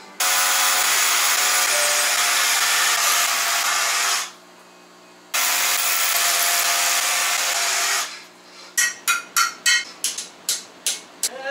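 Cordless drill running hard for about four seconds, pausing for about a second, then running again for nearly three seconds as it bores into the wall for an anchor. It is followed by a quick run of about eight sharp taps.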